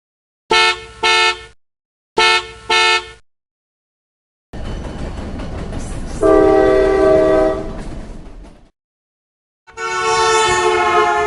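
A series of separate vehicle horn sounds. First a car horn beeps twice, twice over. Then a rumbling vehicle passes with a long horn blast in its middle, and a final horn sounds near the end.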